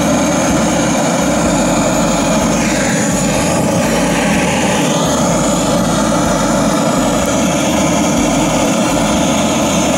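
Handheld butane gas torch burning loudly and steadily, its flame held against firewood to light it.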